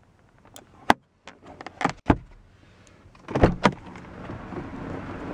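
Sharp clicks and knocks of the sun visor and interior trim being handled in a 2008 Mercedes-Benz E63 AMG cabin. Two loud clunks of the door handle and latch come about three and a half seconds in. A steady rush of outside noise then grows as the driver's door opens.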